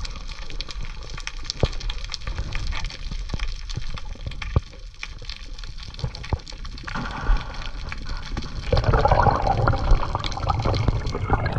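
Water moving around the camera: scattered sharp clicks and crackles over a low rumble. A louder bubbling gush of water takes over in the last few seconds.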